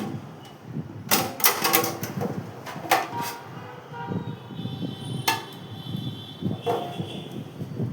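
Hard parts being handled: a cluster of sharp clacks and rattles about a second in, another near three seconds, and single knocks with brief metallic ringing past the middle and near the end, with faint squeaks between.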